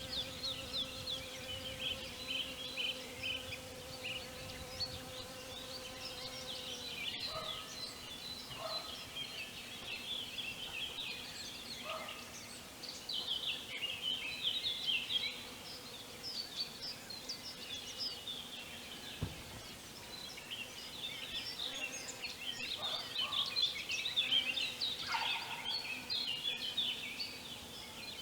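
Songbirds chirping and singing all through, with a steady buzz in the first seven seconds. Several short, lower animal calls cut in, two of them near the end.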